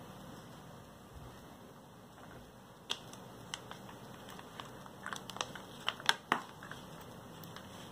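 Scattered sharp clicks and light knocks of a mini-ITX motherboard with its CPU cooler being handled and turned over by hand, starting about three seconds in and coming thickest near the end.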